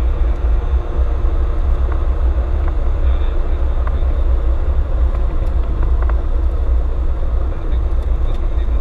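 Cessna 172's piston engine idling with a steady low rumble, heard from inside the cabin during the landing roll-out, with a few faint clicks.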